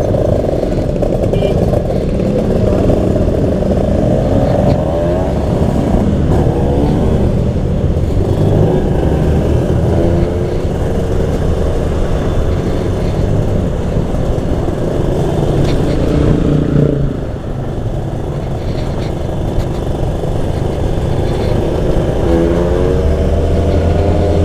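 Motorcycle engine running on the move, its pitch rising as it accelerates a couple of times, once about five seconds in and again near the end.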